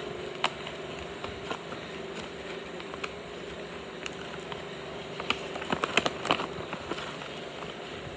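Scattered clicks and crinkles of blind bag packaging being handled and opened, busiest around six seconds in, over a steady hum.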